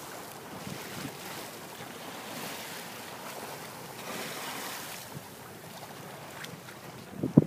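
Steady hiss of sea water rushing past a sailboat's hull, with wind on the microphone. About four seconds in, the hiss swells briefly as a Dall's porpoise surfaces in a splash of spray. A sharp knock comes just before the end.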